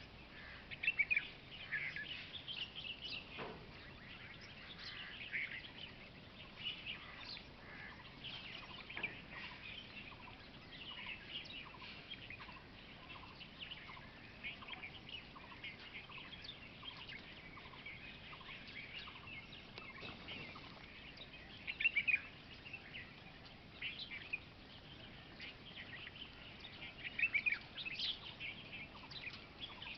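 Several birds chirping and calling together, a chorus of many short high notes. Louder bursts of quick repeated chirps come just after the start, about two-thirds of the way through and near the end, while a fainter, lower bird repeats an even note over and over through the middle.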